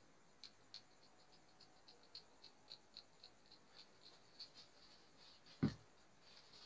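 Faint, irregular light clicks and scratches, a few a second, as a hand works inside a midrange speaker's frame around the voice coil, with one louder dull knock about five and a half seconds in.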